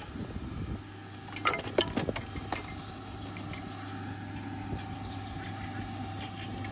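A golf cart running with a steady hum and a thin whine, after a few sharp clinks in the first two and a half seconds, like golf clubs knocking together.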